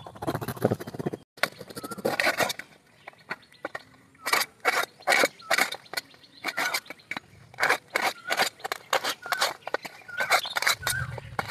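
Knife slicing a green bell pepper on a steel plate: a run of sharp clicks as the blade cuts through and taps the metal, a few a second, with a short lull partway through.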